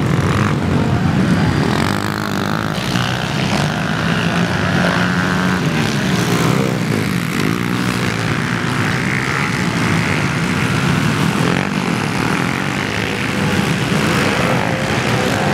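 Several small four-stroke pit bike engines racing on a dirt track, their pitch rising and falling as the riders rev through the corners and jumps.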